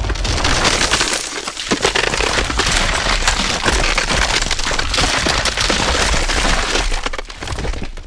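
Sound effect of shattering glass: a dense, continuous crackle and clink of breaking glass shards over a steady deep rumble, fading out near the end.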